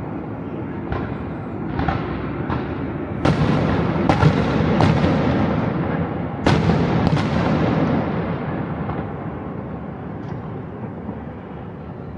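Fireworks exploding over the city, a series of sharp bangs over a rolling, echoing rumble. The bangs come thickest and loudest in the middle, then the rumble dies away toward the end.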